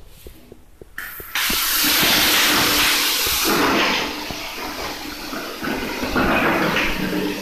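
Water gushing from a wall-mounted bath spout as a concealed mixer valve is opened: the flow starts suddenly about a second in, is loudest for the first two seconds, then settles to a slightly softer steady pour falling to the floor.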